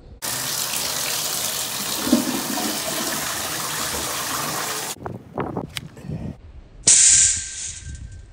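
Toilet flushing, water rushing into and down the bowl for about five seconds before cutting off abruptly: a test flush of a toilet whose drain line has just been cleared. Then a few scattered knocks and a short, loud hiss near the end.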